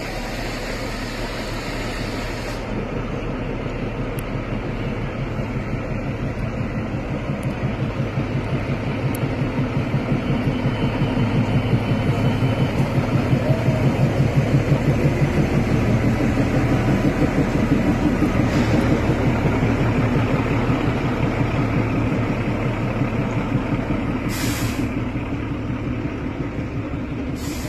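Diesel locomotive and coaches of a narrow-gauge Kalka–Shimla train rolling past. The rhythmic engine rumble builds to its loudest about midway as the locomotive goes by, then eases as the coaches follow. Two short hisses come near the end.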